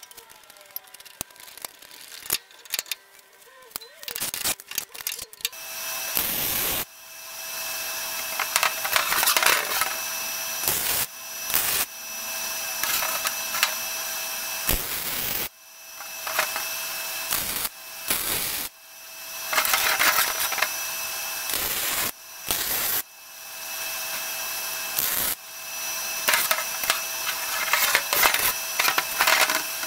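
MIG welder running beads on thin-wall exhaust header tubing: a steady crackling sizzle in six runs of a few seconds each, with short pauses between them. Before it, for the first few seconds, there are light clicks and taps.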